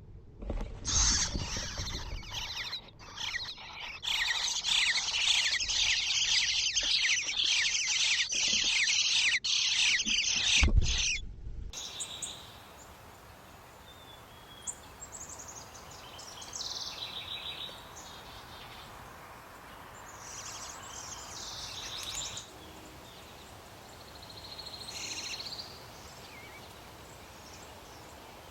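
Bluebird nestlings begging inside a nest box: a loud, dense chorus of rapid high chirps with a couple of low thumps, cutting off suddenly near the middle. After that, a quiet outdoor background with scattered short bird calls.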